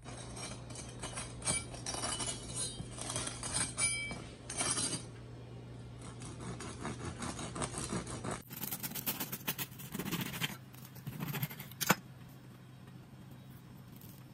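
Knife cutting through the hard, extra-crunchy crust of a freshly baked round loaf: repeated crackling, crunching strokes as the crust breaks, with one sharp snap a couple of seconds before the end.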